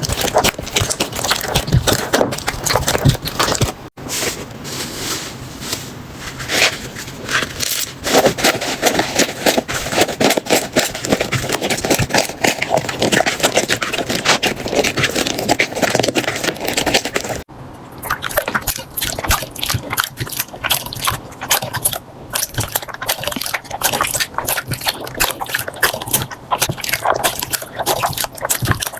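Slime being squeezed and pressed by hand, with dense crackling and popping clicks. The sound breaks off sharply about 4 seconds in and again about 17 seconds in, changing character each time.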